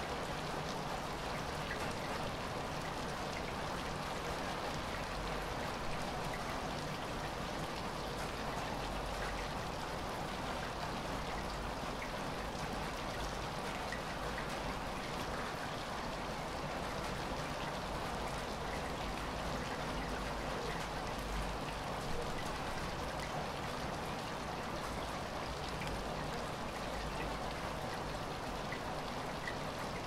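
Light rain falling: a steady, even pitter-patter with single drops standing out here and there.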